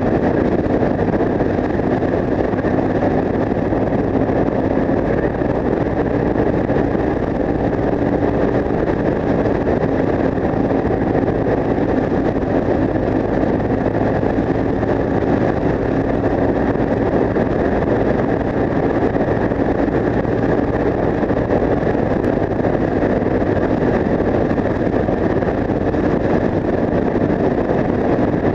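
Yamaha TW 125's single-cylinder four-stroke engine with an Akrapovic exhaust, running steadily at a constant cruising speed, with no revving up or down. Wind noise on the microphone runs under it.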